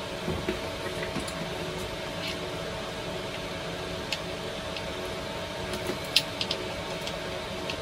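Light, sharp clicks of small parts being handled at the flexible-shaft spindle end of a bench grinder, a quick cluster of three about six seconds in, over a steady background hum.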